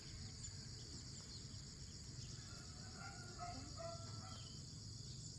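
Faint, steady high-pitched drone of insects, crickets or cicadas, with a few short, faint bird chirps past the middle.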